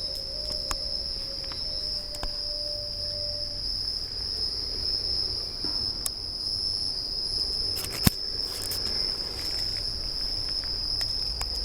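Chorus of jungle insects at dusk: a steady, continuous high-pitched buzz. A sharp click stands out about eight seconds in, with a few fainter ticks scattered through.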